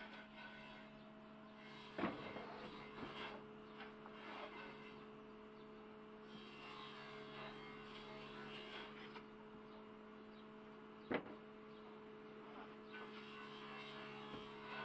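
Sawmill band saw running with a steady hum while boards are fed through the blade, with sawing hiss as the wood is cut. Two sharp knocks stand out, about two seconds in and about eleven seconds in.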